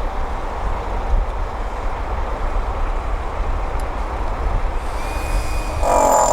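Heavy diesel construction machinery running with a steady low rumble. Near the end a louder droning sound with a steady pitch sets in.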